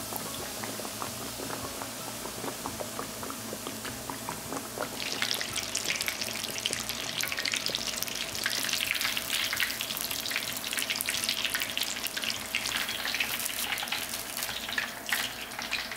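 Breaded pork cutlet deep-frying in hot oil: a steady hiss, turning to dense crackling about five seconds in.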